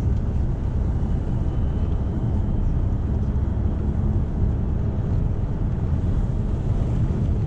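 Straight-piped, stage-1 BMW 535d's twin-turbo inline-six diesel heard from inside the cabin, cruising at a steady pace with a deep, even drone under tyre and road noise.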